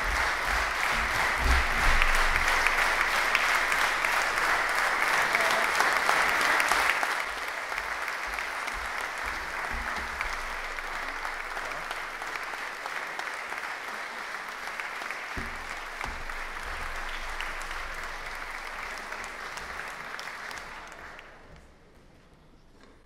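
Audience applauding, strongest for the first several seconds, then thinner and dying away near the end.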